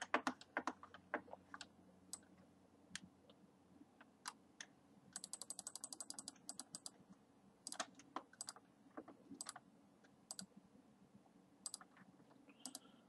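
Faint clicking of a computer mouse and keyboard during on-screen navigation: scattered single clicks, with a fast run of about ten clicks a second, lasting about a second, a little over five seconds in.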